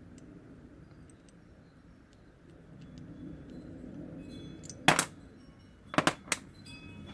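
Sharp metallic clicks of a small tool against parts of a dismantled steering lock: a few faint ticks, then a loud click about five seconds in and two more about a second later.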